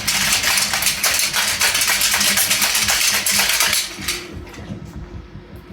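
3D-printed plastic parts clattering and rattling quickly as a print is handled and flexed, a dense run of small clicks that stops about four seconds in.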